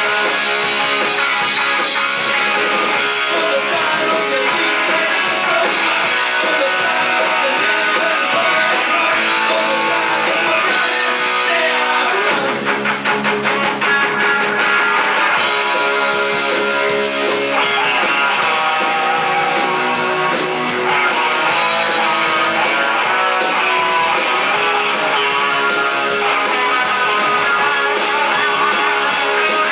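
A rock band playing a guitar-driven song, with a passage of fast, even strumming about twelve seconds in.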